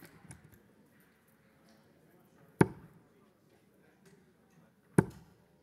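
Steel-tip darts striking a Winmau bristle dartboard: two sharp thuds, about 2.6 and 5 seconds in.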